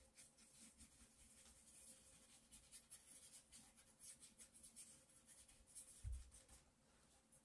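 Faint soft scratching of a thin paintbrush dabbing and stroking across the painting surface, many small strokes in quick succession, with one low bump about six seconds in.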